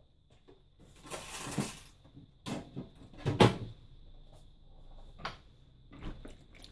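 Kitchen items being handled off-picture: a brief rustle, then two sharp knocks, the second the loudest, and a few lighter taps toward the end.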